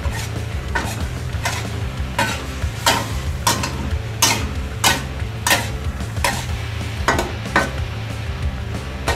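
Metal spatula scraping and turning pineapple and pork in a steel wok during stir-frying, a dozen or so short strokes at about one and a half a second, over a light sizzle from the pan.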